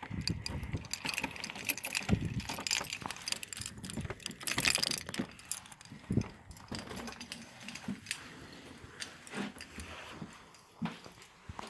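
Irregular clicks, knocks and light rattling of objects being handled, with a louder jangling rattle about four and a half seconds in.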